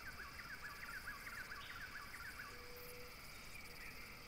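Faint outdoor nature ambience: a steady, high insect drone with a bird's quick string of repeated chirps over the first two seconds or so.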